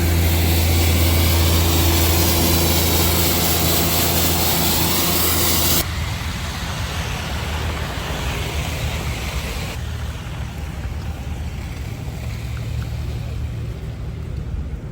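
A motor vehicle's engine running close by, a steady low hum under a broad hiss, which cuts off abruptly about six seconds in. Quieter steady city-street traffic noise follows.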